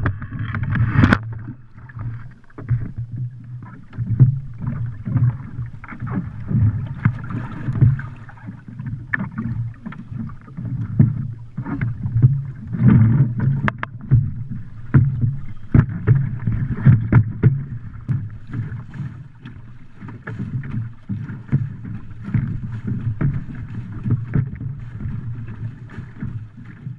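Water sloshing and splashing in and around a swamped wooden dory, heard through a camera fixed to the boat, with many irregular knocks and splashes as a person climbs aboard. Near the end, buckets of water are scooped out and thrown overboard as the flooded hull is bailed.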